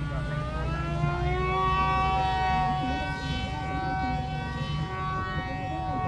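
Radio-controlled Iron Man model aircraft flying overhead. Its motor and propeller give a high whine that rises in pitch over the first second or so, then holds steady.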